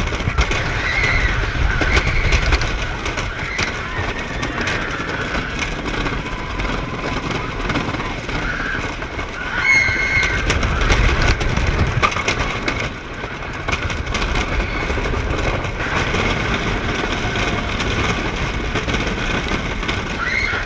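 Roller coaster ride heard from onboard: wind rushing over the camera microphone and the train rumbling along the track, with occasional short shouts from riders.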